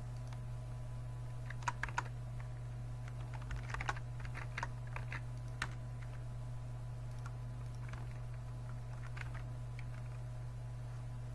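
Computer keyboard keystrokes and clicks in short irregular runs, over a steady low hum.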